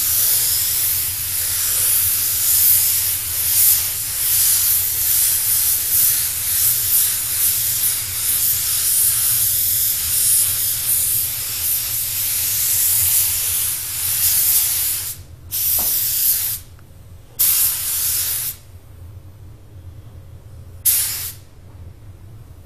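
DeVilbiss TE20 HVLP spray gun hissing as it sprays paint in one long continuous pass. About 15 seconds in it turns to three short bursts as the trigger is pulled and released, with quiet gaps between them.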